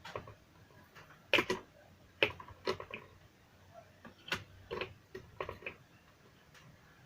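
About ten short, sharp clicks and knocks at irregular spacing: small hard objects being handled and set down. The loudest pair comes about a second and a half in.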